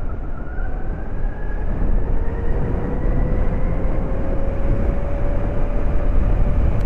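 2022 Zero SR electric motorcycle accelerating on the open road: a thin drivetrain whine rising slowly in pitch as speed builds, over heavy wind and road rush.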